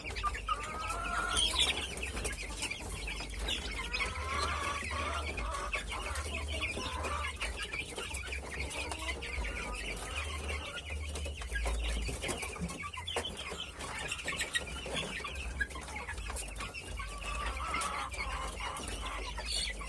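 Flock of village chicken (ayam kampung) chicks peeping continually in many short, overlapping calls, mixed with lower clucking.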